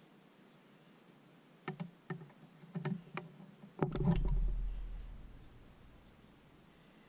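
Hand tools clinking against the aluminium case of a BMW ZF five-speed transmission: a few light metal clicks, then a heavier knock about four seconds in, followed by a low rumble that fades over about two seconds.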